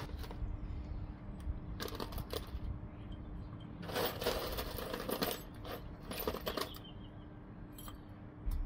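Small pieces of scrap metal clinking and clattering as they are dropped and handled, in several short runs of clinks.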